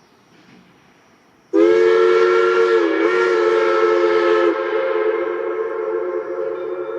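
Steam locomotive No. 70's whistle blowing one long chime-like blast after a second and a half of quiet, with rushing steam under it, sounding as the train is given the highball to depart. The pitch dips briefly partway through; the steam rush drops away about three seconds in and the chord then slowly fades.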